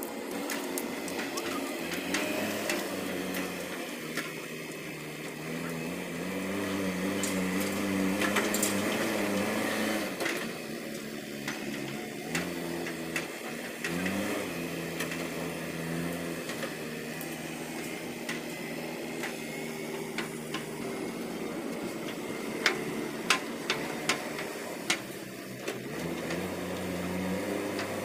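JCB backhoe loader's diesel engine running and revving under load as the machine pushes soil with its front bucket, its pitch rising and falling. A few sharp knocks sound near the end.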